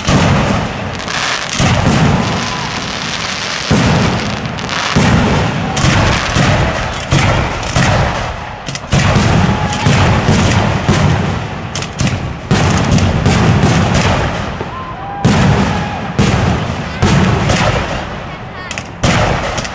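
Aerial fireworks shells bursting in quick succession: many sharp bangs, often several a second, each trailing off in a rumble, with only brief lulls between volleys.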